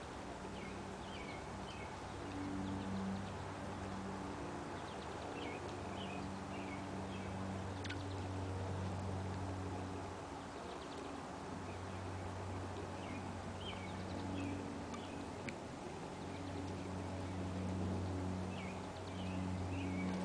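Old English Sheepdog chewing raw chicken on the bone, with a few sharp cracks, over birds chirping and a low steady hum that fades in and out.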